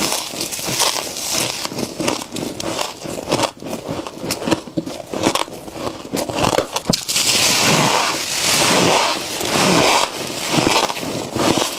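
Close-up crunching and chewing of frost, with dense irregular crackles and scraping crunches and a longer run of steady crunching about two thirds of the way in.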